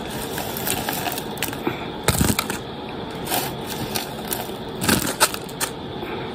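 Scattered clicks, taps and rustles of crispy tater tots being dropped onto paper plates, with a duller knock about two seconds in.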